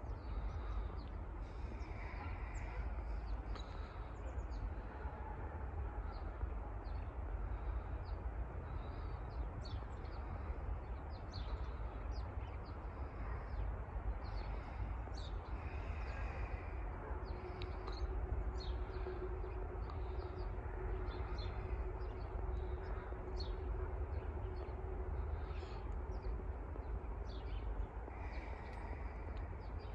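Outdoor bird sounds: small birds chirping many times and crows cawing a few times, over a steady low rumble. A steady hum comes in about halfway through and stops near the end.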